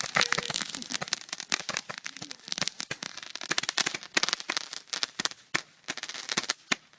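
A firework crackling: a dense, irregular run of sharp pops and cracks that thins out somewhat toward the end.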